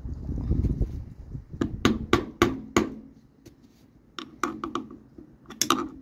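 Hammer blows driving a screwdriver into the side of a tractor front wheel's stuck hub dust cap, to punch a hole in it so it can be crushed and pulled off. After a second of low rumbling come four hard strikes in quick succession, then a string of lighter taps and a last quick flurry near the end.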